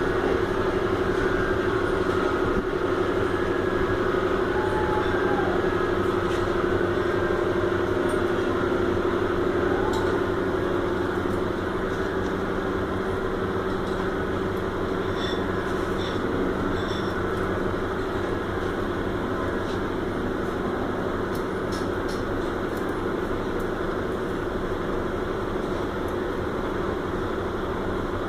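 Steady industrial machine hum with a fixed low drone, from multispot welding equipment running. A few faint ticks occur partway through.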